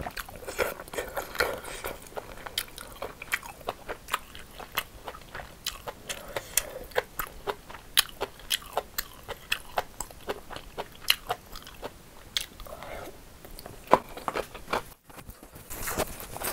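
Close-miked chewing of crunchy seasoned cucumber with rice, a run of sharp crisp crunches a few times a second. The sound breaks off for a moment near the end.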